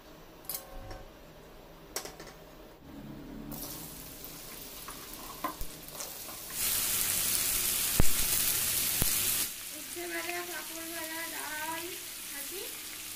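Food frying in hot oil in a pan: a steady sizzle, loud for about three seconds in the middle, with a few sharp clicks of a utensil against the pan.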